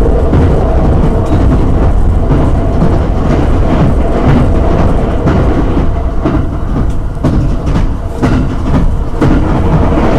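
Cabin sound of a JR West 287-series limited express electric train running at speed: a loud, steady rumble of wheels on rail, with repeated clicks as the wheels cross rail joints.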